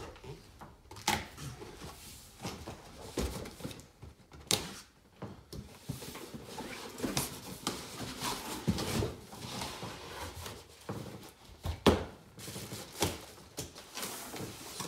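A long cardboard guitar box being handled and opened: cardboard scraping and rustling with scattered knocks and taps, the sharpest knock about twelve seconds in.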